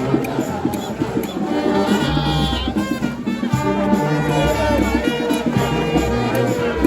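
Music with a steady beat, a low bass line and brass.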